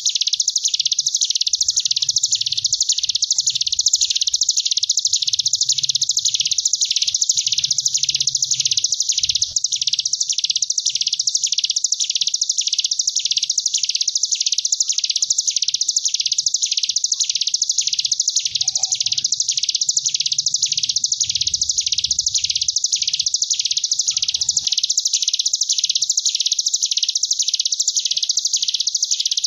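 Ciblek gunung (hill prinia) singing its 'ngebren' song: a continuous, high, wasp-like buzzing trill that swells and fades in waves a little more than once a second.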